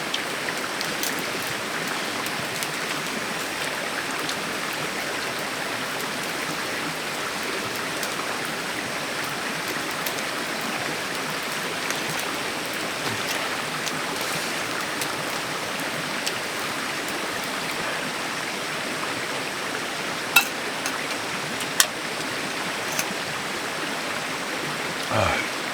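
Mountain stream water rushing steadily, with two sharp clicks about three-quarters of the way through.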